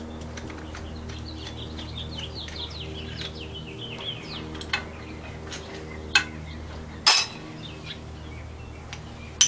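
Metal clinks of a wrench and a Carter fuel pump being unbolted from a Willys 4-134 engine block: three sharp clinks in the second half, the loudest about seven seconds in. A bird chirps a quick run of falling notes in the first few seconds, over a steady low hum.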